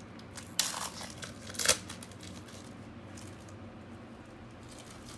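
A foil trading-card pack wrapper being torn open: two short rips about a second apart, the second the louder.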